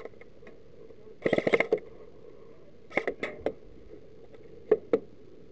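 Airsoft gun firing a short rapid burst about a second in, followed by a few single sharp cracks around three seconds in and again near the end.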